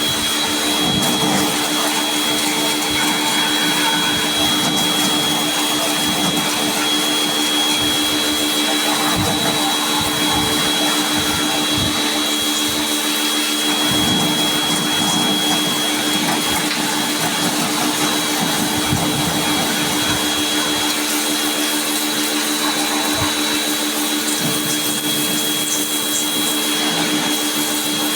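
An electric motor running steadily, with a constant low hum and a high whine under a rushing noise, and a few faint knocks.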